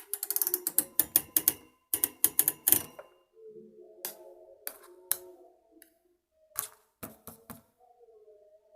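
A fast run of sharp clicks, about ten a second for the first three seconds, then scattered single clicks, over faint sustained tones.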